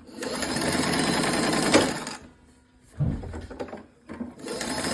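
Singer 328K sewing machine running under its knee-operated control: it runs for about two seconds, stops, gives a brief burst about three seconds in, and starts running again near the end.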